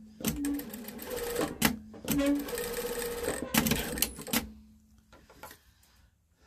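Industrial sewing machine stitching in three short runs with brief pauses between them, stopping about four and a half seconds in.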